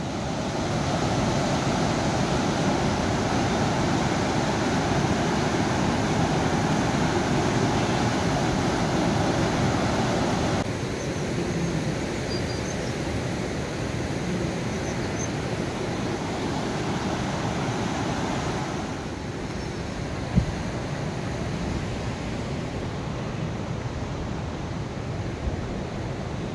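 Steady rushing noise: at first the road noise of a vehicle driving, then, after a change about ten seconds in, the rush of a fast mountain river. A single short click comes about twenty seconds in.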